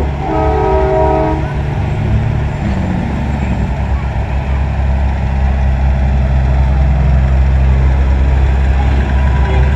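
Heavy diesel truck engines running past in a convoy, with a steady low drone. A multi-note truck air horn chord is blown for about a second near the start.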